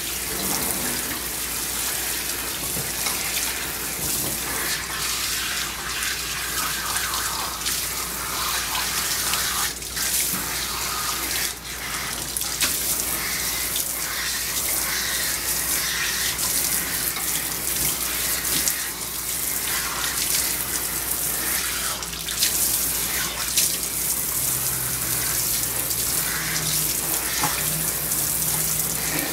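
Water spraying from a hand-held hose nozzle onto a long-haired dog's wet coat and splashing in a grooming tub: a steady hiss that breaks off briefly a few times as the spray is shut off and moved.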